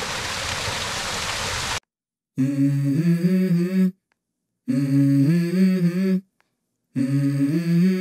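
Water splashing down a small rocky stream cascade, cut off after about two seconds. Then a short wordless hummed melody, stepping up and down in pitch, comes three times with silent gaps between.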